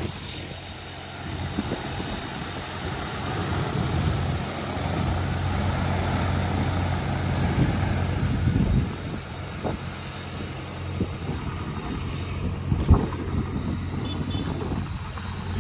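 DJI Agras T40 agricultural drone's rotors humming steadily as it comes in to land, then winding down and stopping about nine seconds in. A few short knocks follow.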